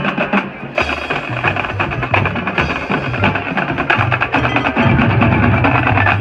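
High school marching band playing, with sustained low notes under drums and other percussion strikes. The band swells louder about five seconds in.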